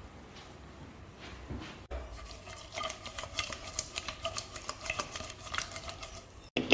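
A spoon stirring in a metal cooking pot: rapid clinks and scrapes against the pot, with a faint ring from the metal. They start about two seconds in, after a quiet start.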